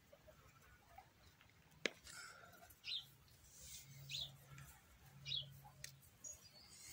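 Near silence, broken by three faint, short high chirps about a second apart and a single sharp click about two seconds in.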